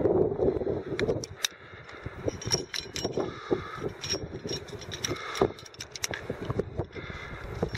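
Aluminium climbing carabiners clinking and jangling against each other and on a sling as they are clipped and handled at a slung rock horn: a scatter of short metallic clicks. Wind buffets the microphone at the start.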